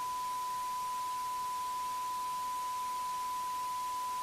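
Steady electronic test tone: one pure, unchanging pitch held without a break over faint hiss.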